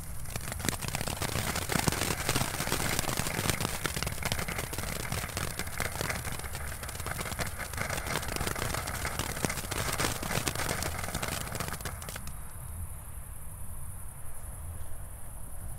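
A small category-1 consumer firework crackling with a dense, fast run of sharp pops for about twelve seconds, then dying down to a few scattered crackles.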